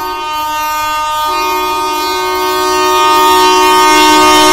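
Indian Railways electric freight locomotive sounding one long blast on its horn as it approaches. The horn grows steadily louder, and a second tone joins about a second in.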